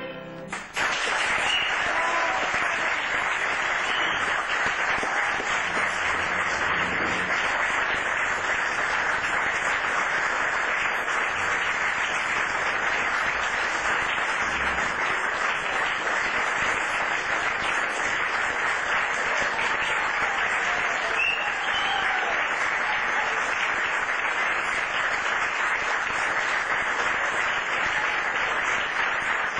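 Audience applauding: a short pause, then dense, steady clapping that starts about a second in and keeps up without letting off.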